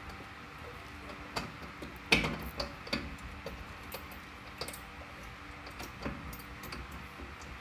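Scattered clicks and knocks, with a sharper knock about two seconds in, from a pry bar levering a BMW i3's rear suspension knuckle down to line up the lower strut bolt.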